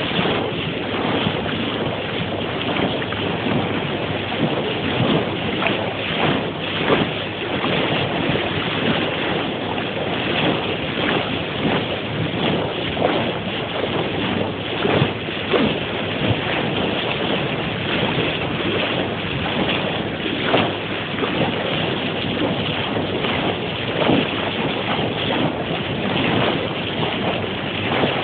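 Rushing water from a moving boat's bow wave, with wind buffeting the microphone in frequent gusts.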